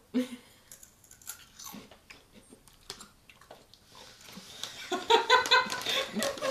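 Crisp seaweed chips being bitten and chewed: a scatter of sharp crunches. About five seconds in, laughter takes over and is louder than the crunching.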